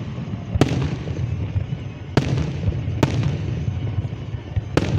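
Aerial fireworks bursting: four sharp bangs at uneven gaps, each trailing off in a short echo, over a steady low rumble.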